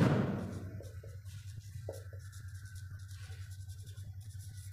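Felt-tip marker writing on a whiteboard: faint scratchy, squeaking strokes over a steady low hum. A brief rush of noise at the very start fades out within about half a second.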